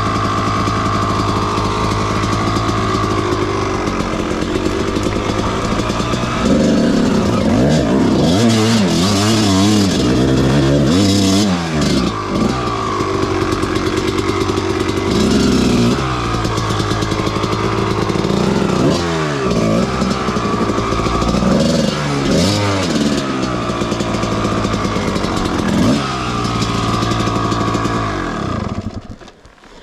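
Suzuki RM250 single-cylinder two-stroke dirt bike engine under hard load on a difficult climb, first at a steady pitch, then from about six seconds in revving up and down over and over as the throttle is worked. The engine falls away just before the end.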